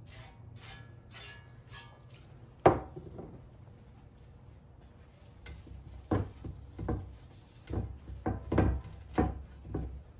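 Short squirts of brake cleaner from an aerosol spray can in the first two seconds, then a sharp knock on the wooden workbench at about 3 seconds. From about 6 seconds come a run of dull thumps and rubbing as a shop towel wipes the oil pan's gasket edge clean.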